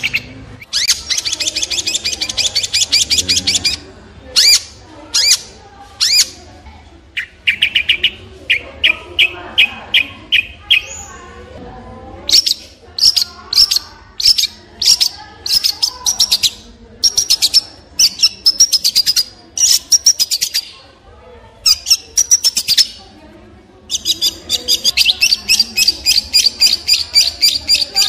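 Long-tailed shrike singing: bursts of very rapid repeated notes, a few seconds each, with short pauses between. One run partway through is lower-pitched, and a long unbroken run comes near the end.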